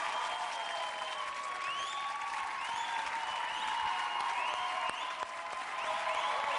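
Studio audience applauding steadily as a dance ends, with several short rising whistles over the clapping.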